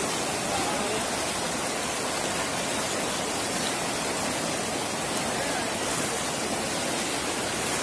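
Steady, unbroken rush of fast-flowing floodwater pouring across and over the edge of a road.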